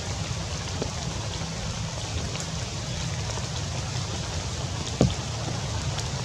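Rain falling on tree foliage: a steady hiss with scattered single drops ticking, and one louder knock about five seconds in.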